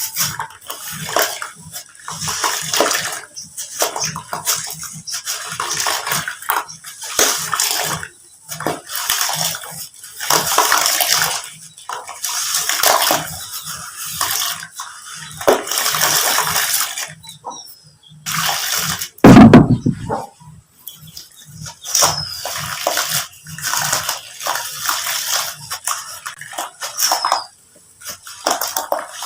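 Sand-cement pieces crumbling and crunching in irregular bursts, with falling grit pattering. About two-thirds of the way through there is one loud, low thud.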